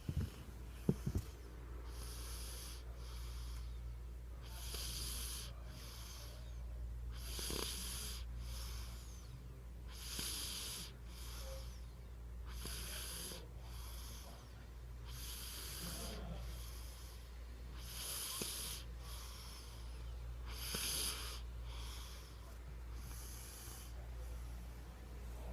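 A three-year-old boy snoring in his sleep, with a breath in and out about every two and a half to three seconds.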